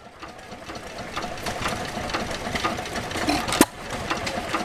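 Restored Sandwich 4 hp stationary gas engine running, with rapid even clicking about four a second and a single loud sharp pop of the engine firing about three and a half seconds in. The sound fades in over the first second.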